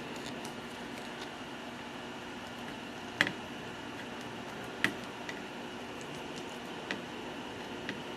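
Hot air rework gun blowing a steady hiss with a faint fan hum, while SMD chips are desoldered from a circuit board. Several sharp clicks cut through it, the two loudest about three and five seconds in.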